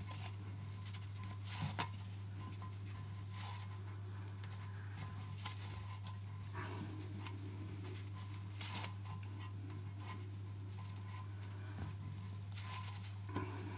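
Faint rustles and light scrapes of a gloved hand turning the wing nuts on the cistern bolts beneath a toilet cistern, heard a few times over a steady low hum.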